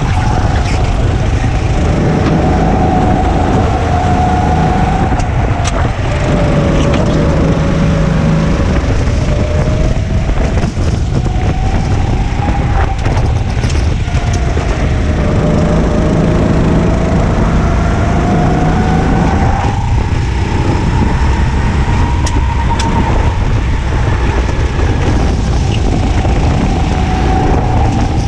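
Go-kart engine heard onboard at racing speed, its revs rising and falling several times as it brakes and accelerates through corners.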